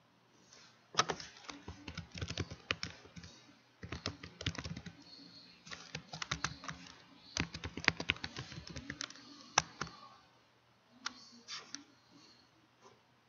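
Typing on a computer keyboard: quick runs of keystrokes with short pauses between them, then a few last keystrokes near the end.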